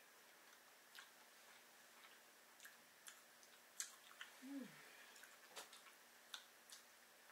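Faint eating sounds close to the microphone: scattered soft clicks and smacks of chewing and of fingers picking at food, with a short falling hum of a voice about halfway through.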